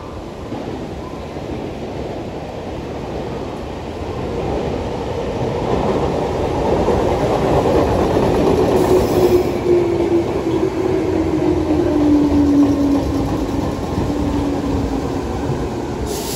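Meitetsu 6000 series electric train pulling into the station. Its running noise grows louder as it comes alongside, with a whine that falls steadily in pitch as it slows.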